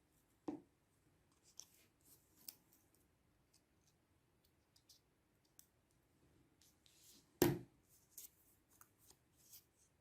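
Scissors snipping paper with small, scattered scratchy clicks, broken by two louder knocks, one about half a second in and one about seven and a half seconds in.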